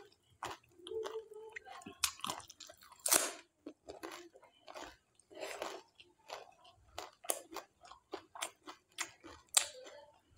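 A person eating panipuri one after another: crisp puri shells crunching as they are bitten, and wet chewing of the shells soaked in spiced water. The crunches come in quick, uneven strokes, with a few louder ones.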